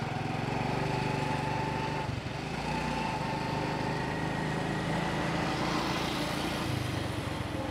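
Small single-cylinder motorcycle engine running steadily under the rider while cruising, with a brief dip in level about two seconds in.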